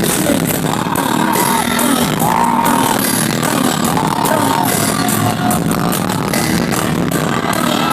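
Music: a repeating melody over a dense, steady jingling of sleigh bells.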